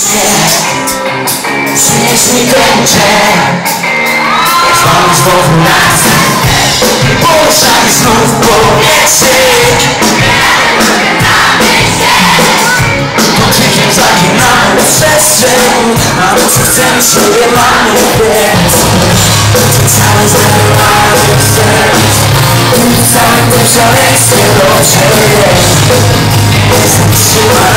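A live pop-rock band with electric guitars playing, with singing and a crowd shouting and cheering, recorded loud and crowded on a phone from the audience. A heavier low bass comes in about two-thirds of the way through.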